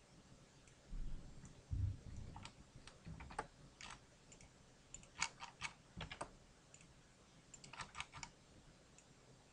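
Faint computer keyboard keys and mouse buttons clicking in irregular bursts, several in quick pairs. There are a few low thumps about a second in.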